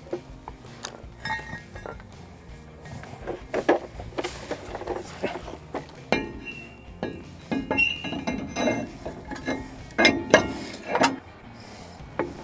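Cast-iron front brake rotor being handled and slid over the wheel studs onto a new wheel hub. It gives off irregular metal clinks and knocks with brief ringing, the loudest near the end.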